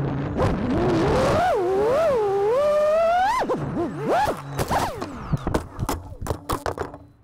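FPV racing quadcopter's motors whining, the pitch sweeping up and down with the throttle. After about three and a half seconds the whine breaks into short bursts, with a string of sharp clicks or knocks near the end before it cuts out.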